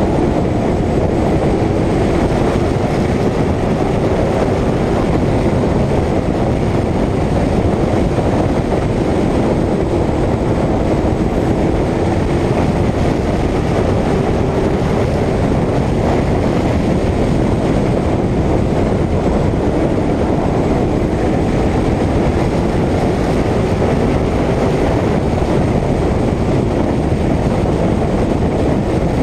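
Short-track stock car's engine running hard at racing speed, heard from an onboard camera on the car under heavy wind and road noise. The engine pitch drifts slowly up and down over several seconds.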